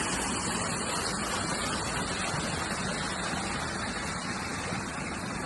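Small garden waterfall rushing steadily, an even, unbroken wash of falling water.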